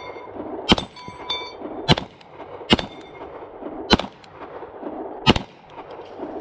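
Five pistol shots about a second apart, with the struck steel targets ringing briefly after several of them.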